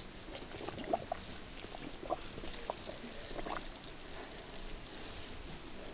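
Dye bath simmering in a steaming pot as a stick stirs it: faint bubbling and scattered small pops, with a short high chirp about two and a half seconds in.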